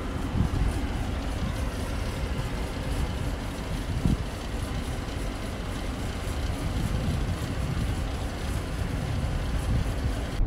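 Outdoor ambience dominated by wind buffeting the phone's microphone, a steady low rumble with distant traffic underneath, broken by a couple of brief knocks, the clearest about four seconds in.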